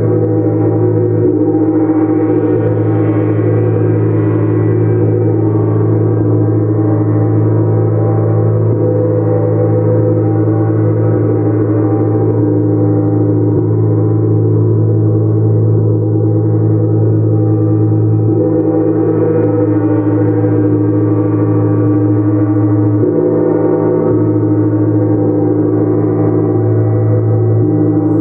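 Gongs played continuously in a gong bath: a steady, dense wash of overlapping ringing tones with no distinct strikes, the blend of tones swelling and shifting every few seconds.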